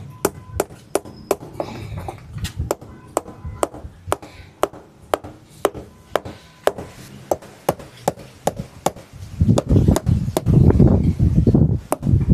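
Small hammer driving nails through layered tyre rubber: a run of sharp blows, about three a second, with louder, duller knocks in the last few seconds.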